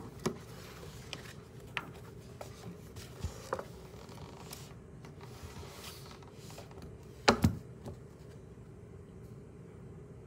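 Books and notebooks being handled on a desk: soft paper rustles and small taps, with two loud knocks about seven seconds in as a book is set down on the desk.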